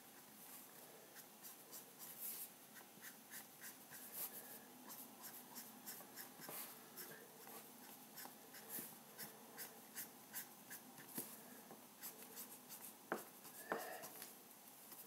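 Felt-tip pen scratching over sketchbook paper in quick, short shading strokes, several a second and irregular, faint throughout, with a sharper click near the end.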